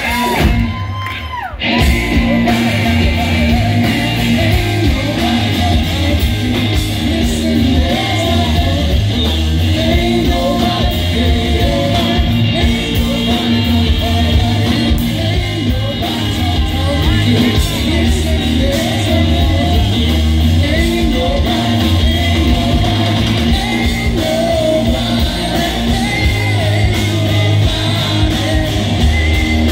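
Live rock band playing: electric guitars, bass guitar and drum kit with a singer's voice, loud and continuous after a brief dip about a second in.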